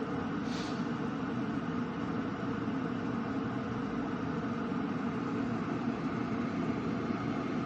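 Electric glass kettle at a rolling boil: a steady bubbling rush of water. It keeps boiling without its auto shut-off cutting in.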